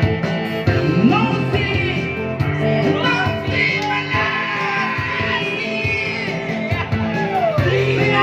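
A man singing karaoke into a corded microphone over a loud backing track with sustained instrumental notes.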